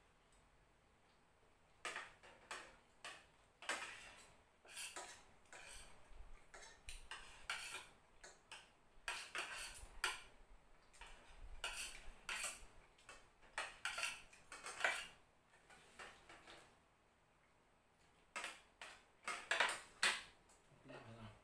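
Metal spoons and forks clinking and scraping against plates and bowls while eating, in irregular clicks starting about two seconds in. They pause briefly near the end before a last short flurry.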